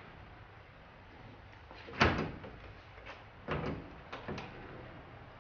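A Fiat Doblò van's door is shut with a single knock about two seconds in. A few lighter clunks follow as the bonnet catch at the front is worked to open the bonnet.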